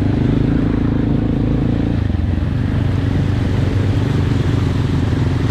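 Honda XR 190L's single-cylinder four-stroke engine running steadily while the motorcycle is ridden, easing off a little about two seconds in.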